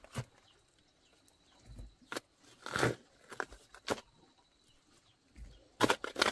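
Irregular knocks and scrapes of hand-tool work in earth, about one a second, with a quick cluster of sharper strikes near the end.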